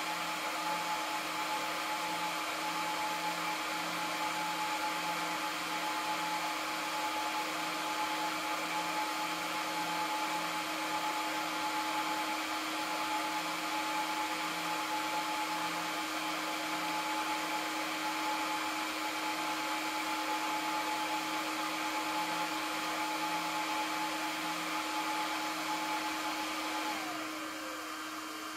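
Aruba S3500-48P PoE switch's cooling fans running at full speed, a steady whir with a whine and a faint pulsing hum. Near the end the whine slides down in pitch and the noise drops as the fans slow down at the end of boot-up.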